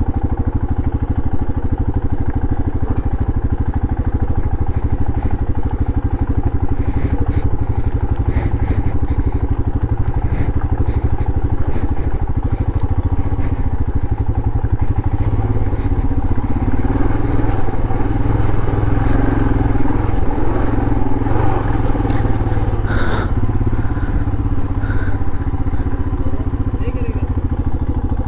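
Motorcycle engine running steadily at low speed on a rough dirt track, with a cluster of sharp clicks and clatter in the first half and one louder click about three quarters of the way through.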